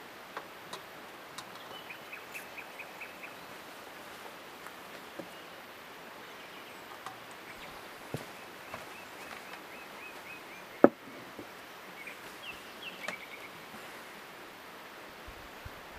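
A bird singing short, rapid trilled phrases several times over a steady outdoor background hiss, with scattered small clicks of tableware. One sharp knock about eleven seconds in as something is set down on the wooden table.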